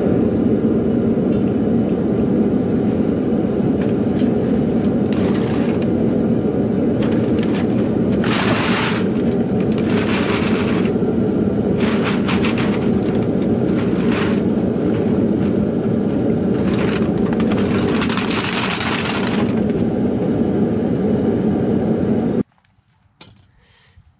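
Propane burner of a homemade can-melting furnace running steadily, starting abruptly as the tank valve is opened and stopping abruptly near the end. Several brief hissy rustling bursts sound over it.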